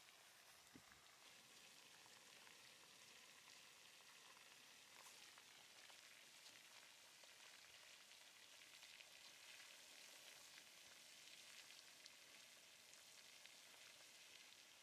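Faint crackling and sizzling hiss of flowing lava, with many tiny cracks and ticks.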